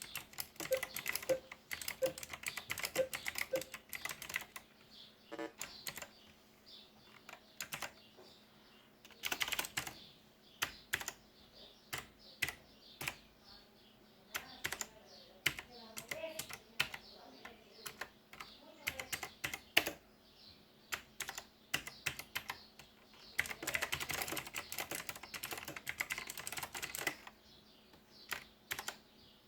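Typing on an HP GK320 mechanical keyboard, a stream of sharp key clicks. There are fast bursts of keystrokes at the start, about nine seconds in and again near the end, with slower, scattered single presses in between.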